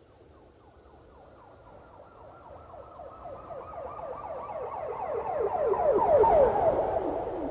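Police car siren in a fast yelp, sweeping in pitch several times a second, passing by. It grows steadily louder to a peak about six seconds in, where a low rumble of the passing vehicle joins it. It then drops in pitch and fades a little as it goes away.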